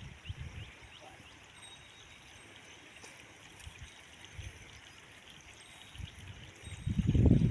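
A stream flowing and trickling, with small high chirps over it. Near the end a loud low rumble comes in and drowns it out.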